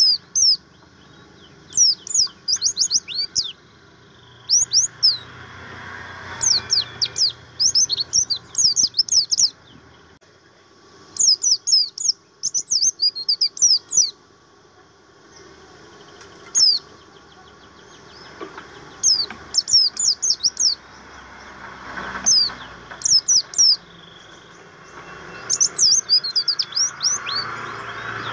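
White-eye (pleci) singing: bursts of quick, high chirps that each sweep down in pitch. The bursts last one to three seconds and come every few seconds with short pauses between.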